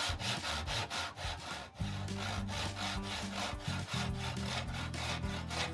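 Handsaw cutting through a small block of wood held in a vise, in fast even back-and-forth strokes, about four a second. Background music comes in about two seconds in.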